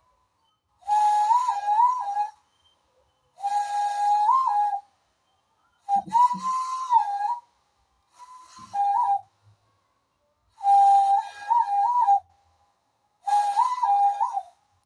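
Conch-shell (shankha) call imitated by blowing into cupped hands: six separate whistle-like blasts, each one to two seconds long, the pitch stepping up and back down in short wobbles within each blast. The fourth blast is shorter and fainter than the others.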